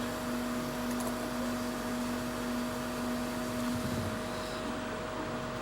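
Steady whir of a hot air rework station's blower, with a hum in it, whose lower tone drops out about four seconds in.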